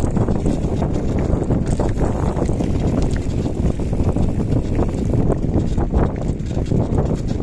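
Wind buffeting the microphone over the crunch and rattle of mountain-bike tyres rolling on a loose gravel road, with scattered small knocks from stones.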